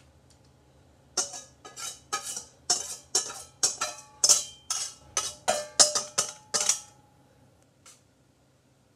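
Wire whisk knocking against a stainless steel mixing bowl, about sixteen quick ringing metal clinks, as the cassava cake batter is scraped out of the bowl into the baking pan. The clinks stop about seven seconds in.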